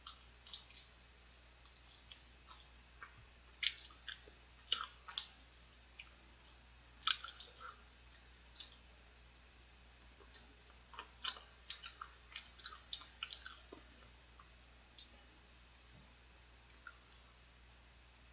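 Close-up eating sounds of fried chicken: sparse, irregular mouth clicks and smacks from chewing, along with small crackles as fingers pull the meat apart, coming in short clusters.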